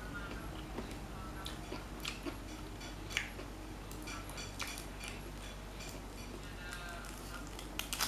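Eating sounds: irregular small clicks and crunches from chewing crispy fried gourami and pulling the fish apart by hand, a few louder about three seconds in and near the end.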